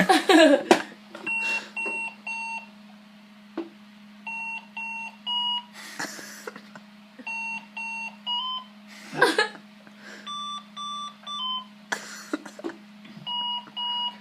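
Sonic Boom alarm clock beeping in repeated groups of four short electronic beeps, the fourth in each group a little higher, a group about every three seconds, with one group pitched higher than the rest. A steady low hum runs underneath, and a few brief rustling noises come in between groups.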